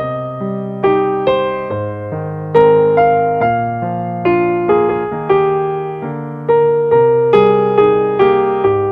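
Ambient keyboard music in a piano tone: chords and single notes are struck one after another, about two a second, and each rings and fades as the next comes in.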